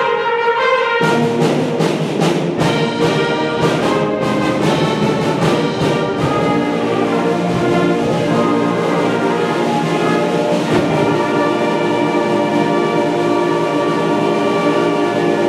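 School concert band playing, brass and woodwinds together: French horns, tubas, flutes, clarinets and saxophones. Short accented chords through the first six seconds or so, then sustained held chords.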